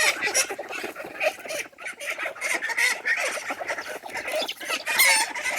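Chickens and ducks clucking and calling over one another, a flock clamouring for food. One loud call stands out about five seconds in.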